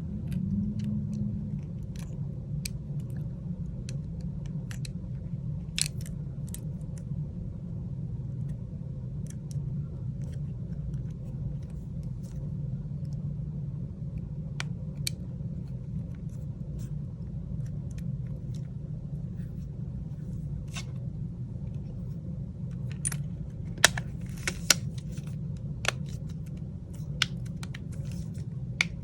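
Small sharp clicks and taps of hands and small tools handling phone parts, scattered and coming thicker and louder near the end, over a steady low hum.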